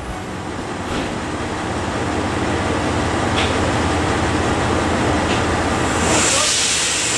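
JR Shikoku 2700 series diesel railcar idling at the platform: a steady engine hum that slowly grows louder, with a few faint clicks. A high hiss comes in about six seconds in.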